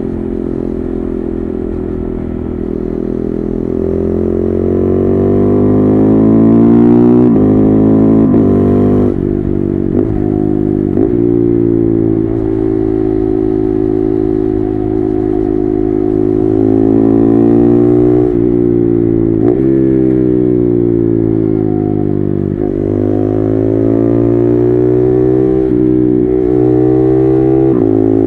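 KTM 390 Duke's single-cylinder engine, loud through an SC-Project exhaust with its dB killer removed, pulling hard with the revs rising and falling. Its pitch climbs and is cut off sharply several times in quick succession, typical of quickshifter upshifts, before dropping back and rising again.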